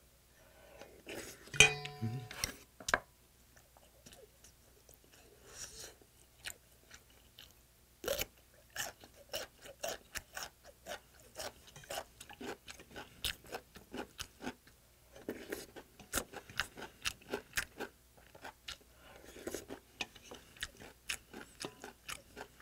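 Close-miked eating sounds: a person chewing, with wet, crisp mouth clicks coming in two long runs at about three to four a second. There is a short louder sound nearly two seconds in.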